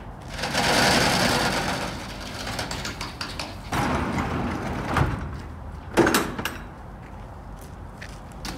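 Spiral-seam sheet-metal ducts being unloaded and handled: a long scraping slide of metal for the first couple of seconds, a shorter scrape near four seconds, then a knock and a sharp metal clank about six seconds in.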